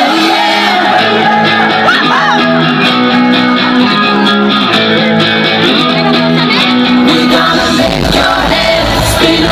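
A live band playing at a sound check: guitar and sung vocals over sustained chords. A heavier bass comes in about eight seconds in.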